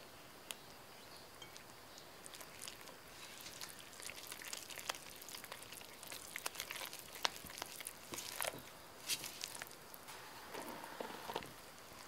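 A mixing tool stirring bread flour into a wet, eggy dough mix in a glass bowl: irregular clicks and scrapes of the tool against the glass, with soft squelches of the sticky mix. The stirring is sparse at first and gets busier from about three seconds in.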